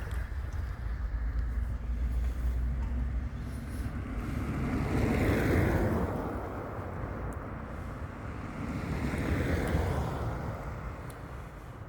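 Snowstorm wind blowing in gusts, swelling twice, with low buffeting of wind on the microphone in the first few seconds.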